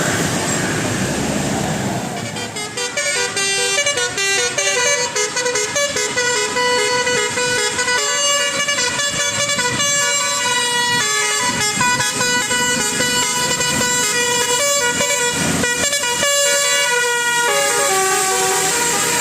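Bus telolet horn (Basuri-type multi-tone electric horn) playing a tune: several steady tones sounding together and stepping from note to note for about fifteen seconds. It starts about two seconds in, after engine and road noise.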